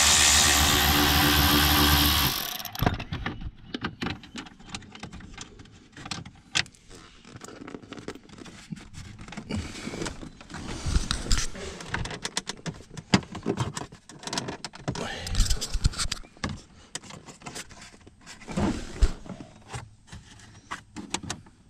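A cordless power tool's motor spinning steadily for about two and a half seconds, driving out a 7 mm trim screw, then stopping. After it come scattered clicks and knocks of tools and plastic trim being handled.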